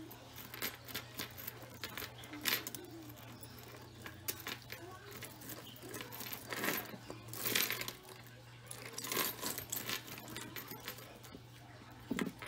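Costume jewelry jangling and clinking as it is handled: metal chains and beads knocking together in irregular clusters of small clicks.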